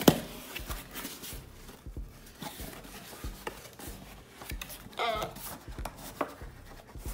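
Cardboard box and packaging being handled and opened: rustling and scraping with sharp clicks, the loudest right at the start. A brief voice-like sound about five seconds in.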